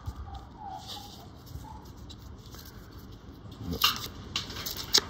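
Australian magpie warbling faintly in roughly the first second. Two sharp clicks near the end from handling a paper-wrapped roll of $1 coins.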